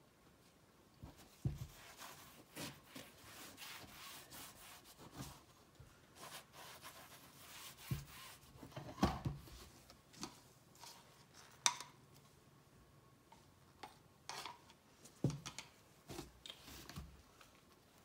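Handling noise of a painted stretched canvas being tilted, set down and shifted on a pad-covered table. Irregular rubbing and scraping from the frame and gloved hands, with several sharp knocks, the loudest a little before the end.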